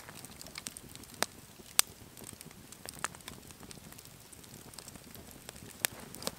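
Campfire crackling under a wire grill grate, with several sharp pops.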